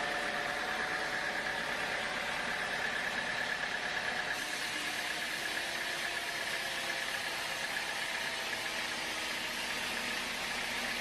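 Sawmill machinery running steadily, a motor hum with a high whine over a hiss; the sound brightens about four seconds in.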